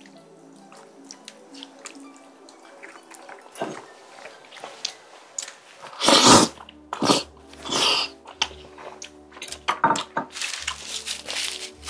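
A person eating spicy tteokbokki with melted cheese and glass noodles. The loudest sound is a long slurp about six seconds in, with more slurps and chewing after it. Near the end come puffs of breath blown out through pursed lips. Soft background music plays underneath.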